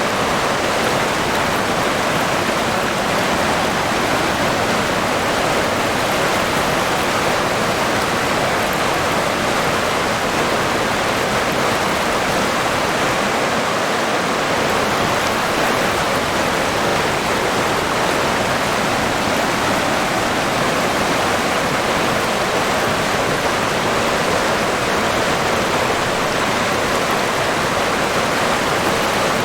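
River water flowing, a steady even rush with no breaks or changes.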